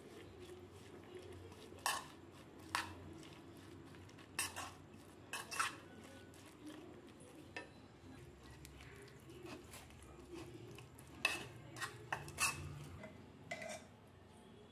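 Metal spoon stirring a wet mix of grated potato, carrot and egg in a bowl: a soft squelching churn with a dozen or so irregular sharp clinks where the spoon knocks the bowl.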